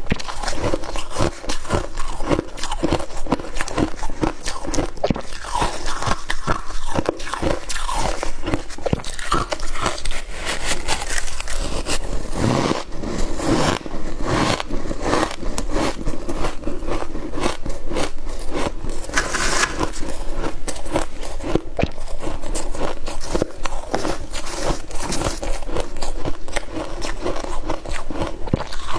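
Close-miked biting and chewing of freezer frost: a dense, unbroken run of crunches.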